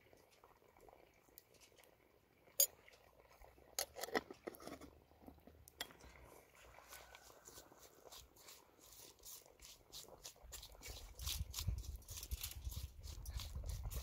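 A metal spoon clinking a few times against an aluminium bowl, then fingers squeezing and mixing chopped vegetables with chili powder in the bowl: a run of soft, wet crunching and small clicks that grows busier toward the end.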